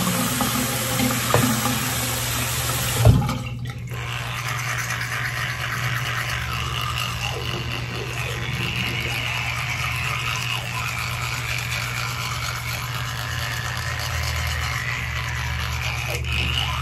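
Tap water running into a bathroom sink. About three seconds in there is a sharp knock, and the water noise drops and changes before carrying on as a softer, steady hiss.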